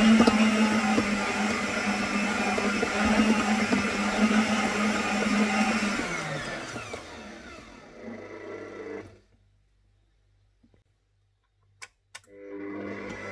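Stand mixer motor running steadily while it mixes bread dough, then switched off about six seconds in, its hum falling in pitch as it winds down to silence. Two small clicks follow, and near the end a quieter steady hum starts.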